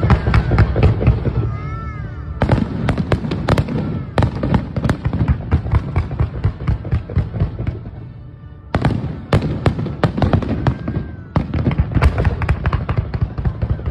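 Wide starmine fireworks barrage: a dense run of rapid bangs and crackles, thinning out about eight seconds in and starting up hard again a moment later.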